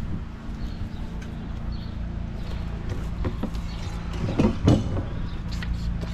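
Fuel-polishing pump running with a steady hum as it pumps filtered diesel back into a boat's fuel tank at about 2 bar. A few knocks and clatters of handled gear come about three to five seconds in, the loudest near the end of that stretch.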